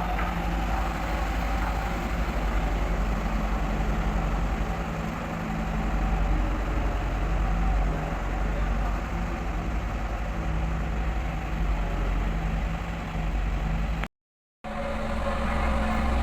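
Dynapac road roller's diesel engine running steadily with a deep low rumble. The sound cuts out for about half a second near the end, then returns heavier.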